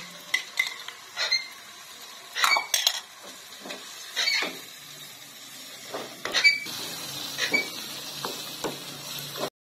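Metal spoon clinking and scraping against a bowl and a non-stick wok while chicken is stirred in a spice paste with a wooden spatula. It is a string of separate clinks and scrapes, the loudest about six seconds in.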